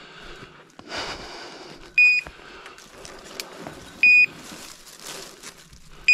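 A dog's beeper collar giving short, high electronic beeps at an even pace, about every two seconds, the point-mode signal that the dog is standing still on point. Between the beeps, brush and dry twigs rustle as someone pushes through the undergrowth.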